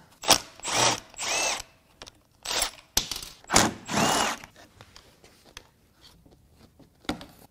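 Handheld power tool whirring in about six short runs, each a second or less, over the first four and a half seconds while unbolting a turbocharger oil return line; faint small clicks of tool handling follow.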